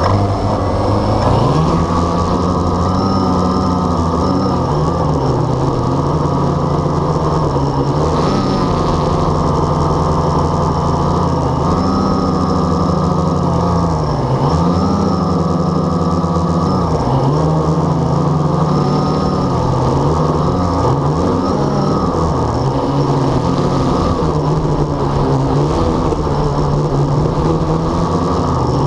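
Blade 350 QX quadcopter's four brushless motors and propellers running, heard close up from its own onboard camera. They spin up about a second in as it lifts off the grass, then the pitch rises and falls every few seconds as the throttle changes in flight.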